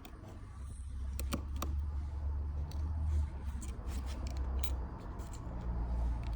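Scattered small sharp clicks and taps of a precision screwdriver and metal tools on the tiny internal screws of an iPhone 6S, over a low steady hum.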